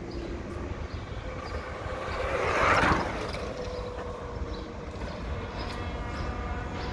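Kaabo Wolf King GT Pro electric scooter passing close by. A rush of tyre and motor noise swells to a loud peak about three seconds in, then fades as the scooter rides away, leaving a faint motor whine that drops slightly in pitch, over a steady low street rumble.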